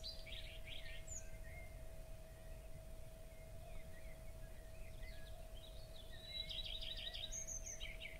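Small birds chirping and trilling in quick runs of notes, loudest in the first second and again over the last few seconds, above a faint steady hum and low background noise.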